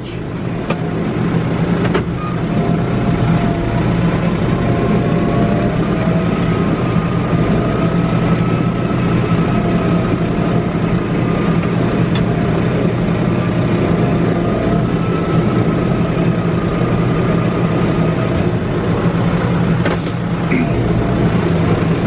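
Tractor engine running steadily under load while it tows a heavy snow roller made of dump-truck tires, heard from inside the cab. A faint whine, wavering a little in pitch, runs above the engine hum.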